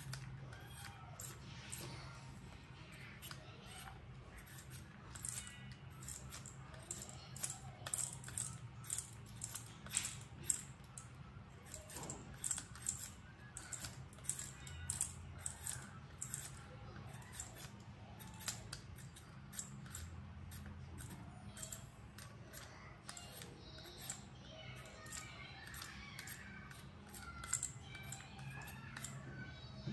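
A Y-shaped vegetable peeler scraping the skin off raw potatoes in quick repeated strokes, each a short sharp scrape, over a steady low hum.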